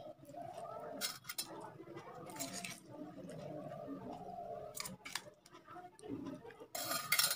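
Close-up eating sounds: a steel spoon clinks against steel dishes as curry is served, and rice is squished and mixed by hand on the plate. Sharp clicks come about a second in and twice near the five-second mark, with a louder scraping burst near the end.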